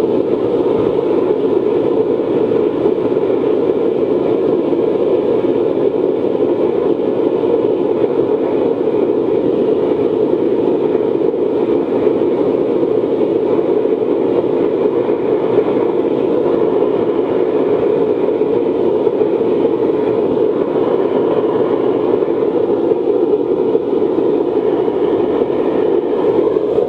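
Forced-air waste oil burner firing into a furnace: a loud, steady rush of blower air and flame.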